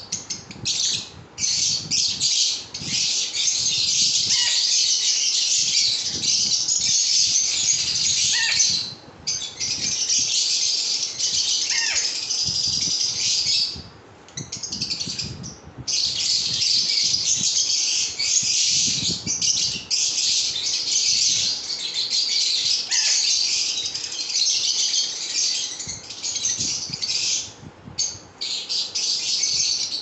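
Fischer's lovebirds chattering: a dense, shrill, near-continuous twittering and squawking, broken by a couple of short pauses and turning into separate bursts near the end.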